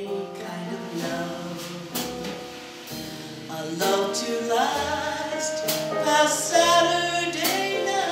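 A woman singing a slow song into a microphone, holding long notes, with an upright bass playing low notes underneath.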